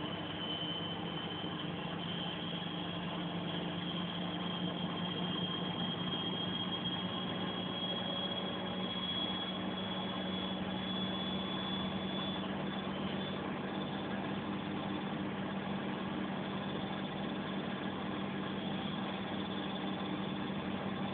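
Bosch washing machine in its final spin: the drum motor runs with a steady hum and a high whine that climbs slowly for about twelve seconds as the drum gathers speed, then holds level.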